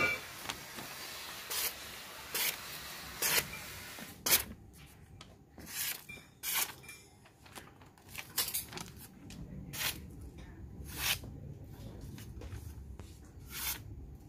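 Freshly sharpened hand-forged knife slicing through strips of paper as a sharpness test: about a dozen short swishes at uneven intervals, the loudest about four seconds in.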